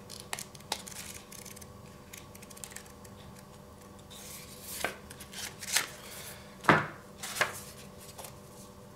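Paper instruction booklets being leafed through and handled, with page-flipping rustles and light taps of paper on cardboard. A few louder rustles and knocks come in the second half, the loudest about two-thirds of the way in.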